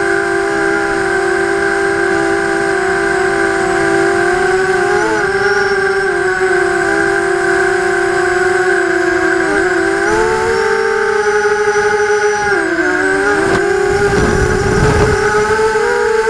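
FPV racing quadcopter's brushless motors and propellers whining, picked up by the onboard camera, the pitch dipping and rising with throttle changes several times. Two-thirds of the way in a low rushing noise joins for a couple of seconds.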